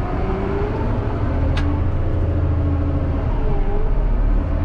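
Cat 140 motor grader's diesel engine running steadily under load, heard from inside the cab as a deep, even drone. A single sharp click comes about a second and a half in.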